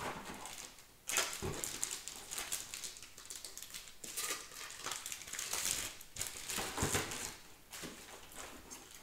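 Hands handling the parts of a robot mower's RTK antenna mounting kit: irregular rustling with a few light knocks.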